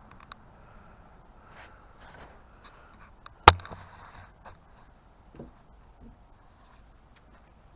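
A steady high-pitched insect chorus, with one sharp, loud click or knock about three and a half seconds in and a few faint small knocks around it.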